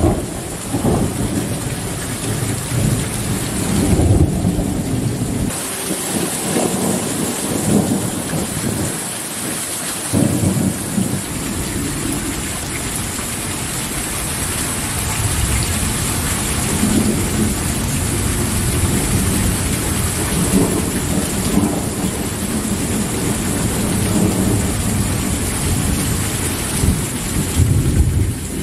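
Thunderstorm: steady rain falling, with low rumbles of thunder that swell and fade several times.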